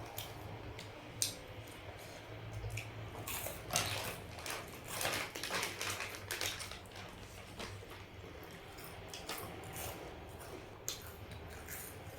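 Irregular crunches and clicks of someone chewing and biting into a crunchy snack, about one or two sharp cracks a second with denser bursts in the middle.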